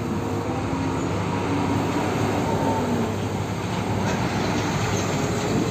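Heavy diesel fuel tanker truck driving along a road: a steady engine rumble with tyre and road noise.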